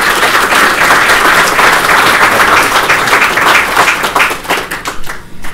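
Audience applauding, a dense run of many hands clapping that thins out near the end.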